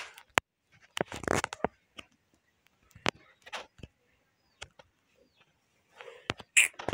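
Scattered single taps of a fingertip on a phone's touchscreen keyboard, a second or more apart, with a few short soft breathy noises between them.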